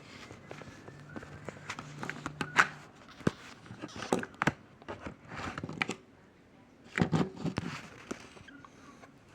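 Scattered clicks, taps and rustling of hands fiddling with a tiny screw and parts inside an opened laptop, fitting an M.2 SSD's retaining screw. The louder knocks come in clusters about a third, half and three quarters of the way through.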